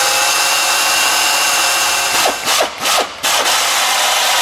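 Drill with a step bit cutting a hole through sheet steel, running steadily with the bit grinding into the metal and easing off briefly three or four times about halfway through.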